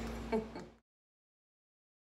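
A steady low room hum and a short vocal sound cut off abruptly under a second in, followed by dead silence.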